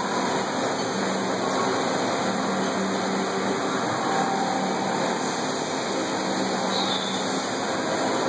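LeBlond Makino A55 horizontal machining center running steadily through a machining cycle, a constant rush of coolant spray with faint steady machine tones beneath it.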